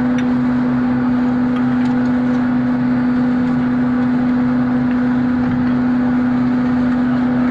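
Steady machinery hum: one strong, unchanging low tone over a noisy mechanical background, with a few faint ticks.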